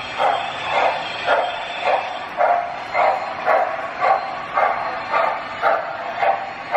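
Steady steam chuffs from an MTH Proto-Sound 2.0 O gauge steam locomotive's onboard sound system, evenly spaced at about two a second as the train runs at an even speed.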